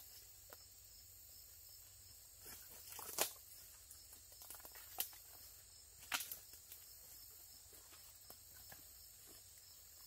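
Faint footsteps and brush rustling as a hiker pushes through dense undergrowth, with a few sharper twig snaps, the clearest about three seconds in and others near five and six seconds.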